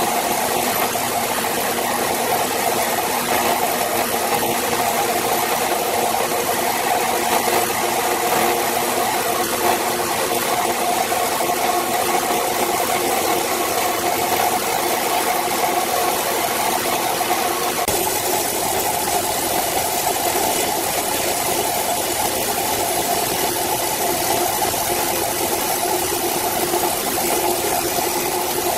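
Horizontal band sawmill running steadily, its band blade cutting through a stack of wooden boards. The sound shifts slightly about two-thirds of the way through.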